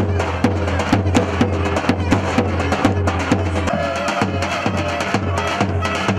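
Davul and zurna playing a halay dance tune: the big double-headed drum beats a dense, driving rhythm with sharp stick strokes while the zurna plays the melody above it.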